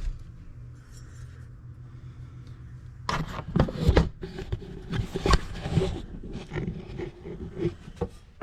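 Scraping, rubbing and knocking of a square and tools being handled against a wooden tool holder, an irregular flurry of knocks and scrapes starting about three seconds in over a low steady hum.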